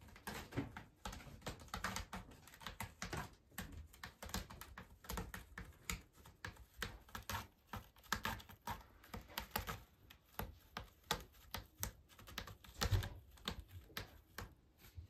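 A calico cat clawing a rope-wrapped scratching post: rapid, uneven scratching and clicking strokes, the loudest about thirteen seconds in. The cat is grooming its claws on the post.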